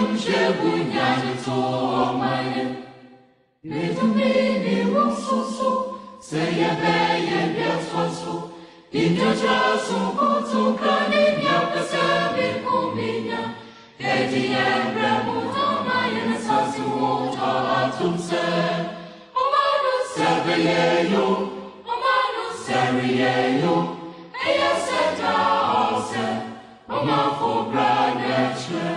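Background vocal music: voices singing in phrases a few seconds long, with short breaks between them.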